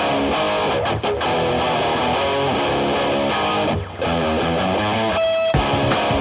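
Guitar-driven backing music playing steadily. It dips briefly just before the four-second mark, and about five seconds in it thins to a single held note before the full band comes back in.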